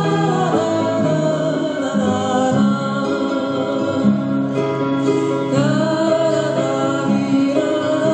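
A song with a singing voice over guitar accompaniment, playing steadily as music for a line dance.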